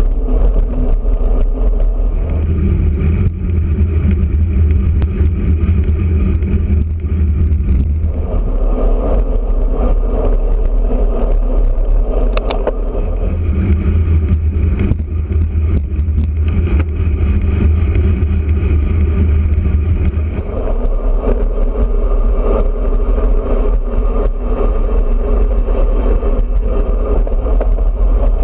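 Wind rushing over the microphone of a handlebar-mounted camera on a road bike at riding speed, a loud steady rumble. It grows heavier twice, for several seconds each time.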